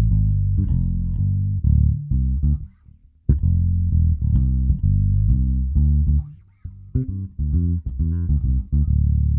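Ibanez four-string electric bass with a deOliveira active preamp circuit, played slap style: a run of punchy low notes with sharp attacks and a few short pauses, moving into a held note near the end.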